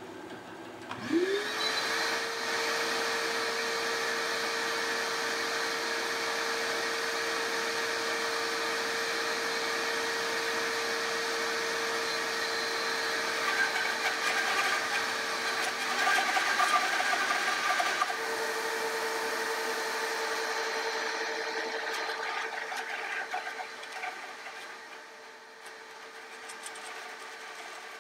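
Grizzly G0555XH 14-inch bandsaw switched on about a second in, its motor spinning up to a steady hum. It then runs as a Wood Slicer blade resaws an 11½-inch-tall cherry board at near maximum capacity. The cutting grows louder and rougher in the middle and quieter near the end.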